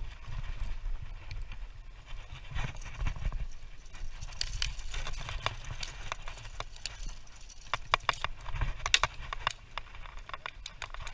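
Footsteps on a concrete quay, irregular sharp taps that come thickest around eight to nine seconds in, as an angler steps about while playing a fish on a spinning rod. A low steady rumble of wind on the microphone runs underneath.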